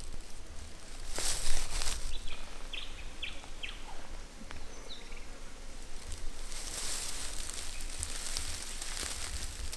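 Bush ambience: a few short bird chirps, with bursts of high hiss about a second in and again near the end, over a low steady rumble.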